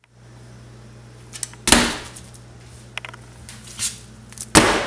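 Handling noise on a kitchen counter: two loud short rustling scrapes, about two seconds in and near the end, with a few lighter clicks, as a plastic-wrapped tray of ground beef is picked up and moved. A steady low hum runs underneath.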